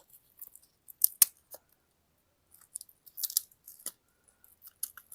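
Sharp clicks and light rattling of tools and hardware being handled, loudest about a second in and again in a cluster around three seconds in.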